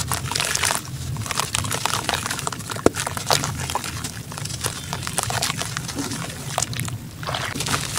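Wet, gritty sand-cement clumps squeezed and crumbled by hand over a basin of water: a dense, irregular gritty crunching and crackling, with sloshing as the pieces drop into the water. One sharp click stands out about three seconds in.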